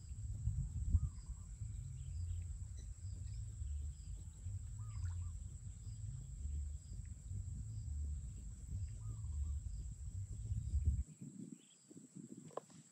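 Outdoor wetland ambience: a low rumbling noise, like wind on the microphone, that cuts off suddenly near the end, with faint, repeated short bird chirps and a steady high insect drone.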